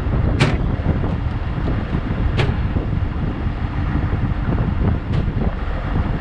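Farm tractor engine running steadily as a low rumble, with three short sharp knocks about half a second, two and a half and five seconds in.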